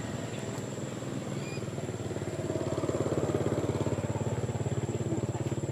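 A small engine running with a rapid, even pulse. It swells in level about halfway through.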